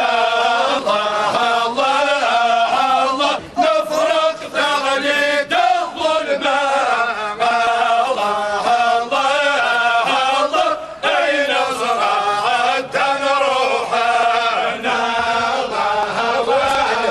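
Many men's voices chanting together in unison, a funeral chant sung while walking in procession, in long phrases with short breaks between them.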